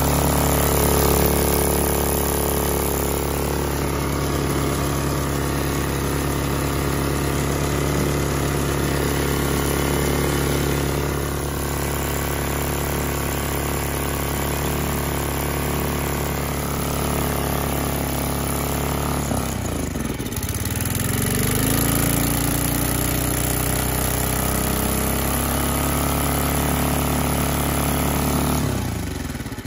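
Briggs & Stratton 127cc, 3 hp single-cylinder engine running steadily after being submerged in a pond and flushed of water. About two-thirds of the way through its speed sags briefly and recovers, and it cuts off at the very end. Its oil is probably contaminated with water.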